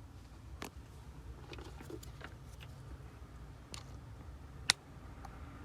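A few light clicks and taps of a phone charging cable being handled and plugged into a newly installed USB port, with one sharp click about three-quarters of the way through, over a faint low hum.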